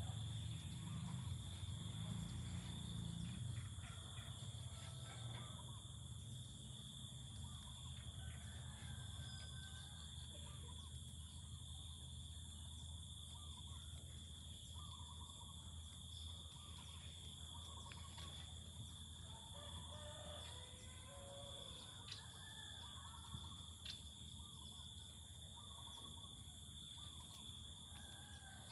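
Faint outdoor ambience: a steady high-pitched drone with scattered short bird-like calls, most of them in the middle of the stretch.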